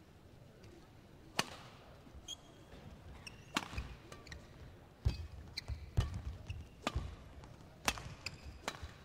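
Badminton rally: sharp racket strikes on the shuttlecock, about once a second in the second half. Between them come brief shoe squeaks on the court floor and dull thuds of footwork.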